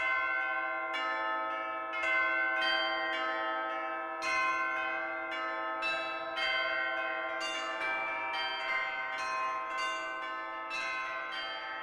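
Church bells pealing, about two strikes a second, each ringing on into the next.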